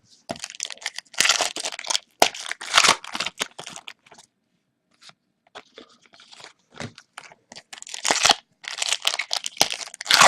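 Trading-card pack wrappers being torn open and crumpled, crinkling in two bouts with a quieter pause between them.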